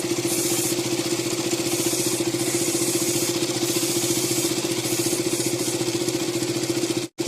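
KTM Duke 200's single-cylinder four-stroke engine idling steadily while warming up after an oil and filter change. The sound drops out briefly near the end.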